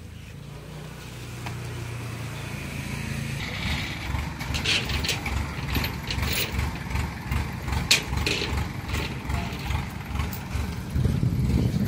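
Kubota rice combine harvester's engine running as the tracked machine drives off, getting louder from about two seconds in, with a low rhythmic throb and a few sharp metallic clanks.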